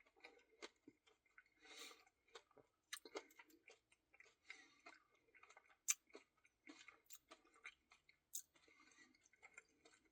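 Faint chewing of a mouthful of Blizzard ice cream, with scattered small wet mouth clicks and light crunches.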